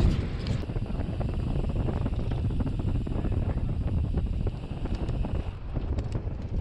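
Wind buffeting the microphone on a moving bicycle, over a low rumble of tyres on the path, with many small clicks and rattles.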